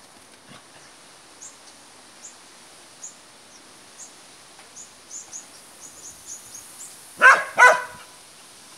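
A dog barks twice, sharply and loudly, about half a second apart near the end.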